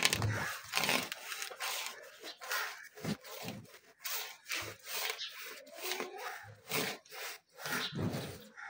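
A thin wire saw rasping back and forth through a buffalo's horn in quick, even strokes, about two a second, as the horn is cut off near its base.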